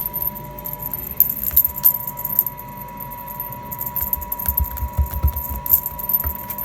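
Light metallic jingling and clicking from a cat toy being batted about, over a steady machine hum, with a few low thuds about five seconds in.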